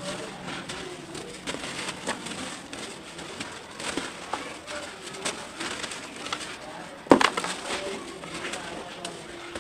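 Lumps of dry red dirt crunching and crumbling as they are squeezed by hand, with crumbs and powder pattering into a metal tub, and one loud crunch about seven seconds in.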